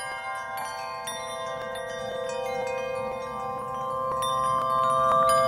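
Background music of sustained chime-like tones with bell notes struck in quick succession, growing louder toward the end.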